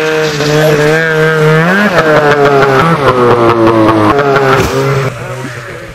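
Snowmobile engine running at high revs, pitch rising about two seconds in as it is throttled up for the jump, then sliding down and fading near the end as the sled passes.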